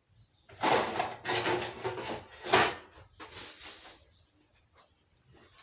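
Onion being grated by hand on a kitchen grater: four or five quick grating strokes, each under a second, stopping about four seconds in.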